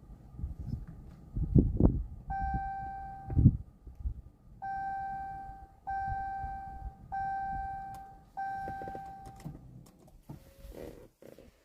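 Car dashboard chime dinging five times, each ding a single-pitched tone that fades over about a second, a little more than a second apart. A few dull knocks and bumps come before the chimes.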